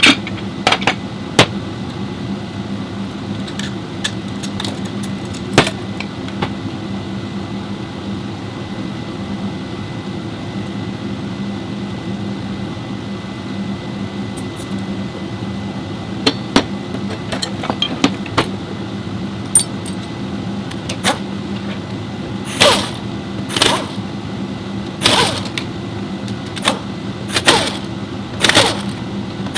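Repair-shop work sounds: a steady mechanical hum under scattered sharp metallic clinks and knocks. In the last third come short, louder bursts of noise about a second apart.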